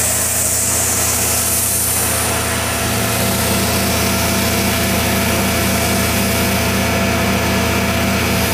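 Tormach 1100 CNC mill's spindle running while its tool cuts a chamfer along the edge of an aluminium block: a steady hum and whine with the hiss of the cut, and a light pulsing from about three seconds in.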